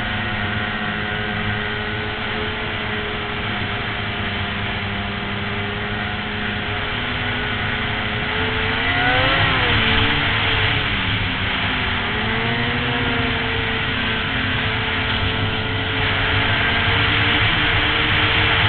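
Snowmobile engine running at trail speed with a steady hiss of track and wind. About halfway through, the engine pitch swoops up and back down, and it bends again a few seconds later.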